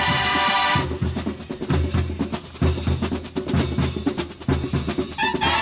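Drum and bugle corps drum line playing a percussion break on snare and bass drums. The bugles hold a chord briefly at the start, drop out, and come back in just before the end.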